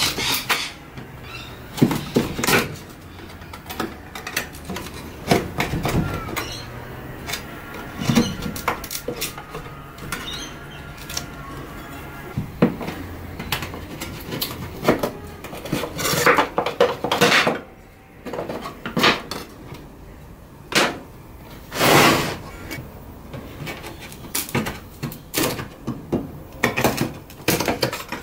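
Steel putty knife scraping old white paint off a wooden coffee table, in short, sharp strokes at irregular intervals with a few knocks of the blade.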